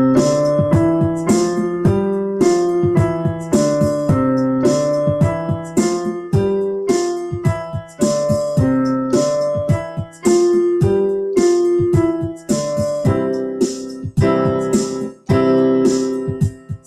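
Yamaha portable keyboard in piano voice playing major five-finger patterns with both hands together, five notes up and back down in steady even notes. Each new pattern starts a step higher. The keyboard's built-in rock drum beat plays underneath.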